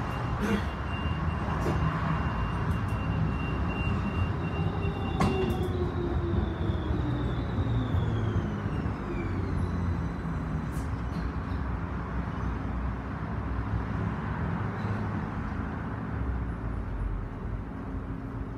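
Standing tram's steady low rumble while another tram draws up close alongside, its motors whining down in pitch as it brakes to a stop. There are a few sharp clicks in the first five seconds, and a steady hum sets in once it has stopped.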